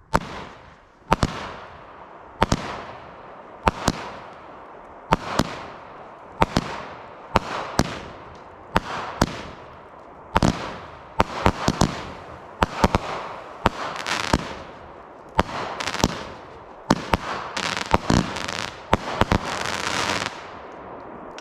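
A 200-gram consumer firework cake fires its shots one after another, each a sharp bang followed by a fading hiss. The shots come about every second and a half at first, then faster and often in pairs in the second half, before stopping near the end.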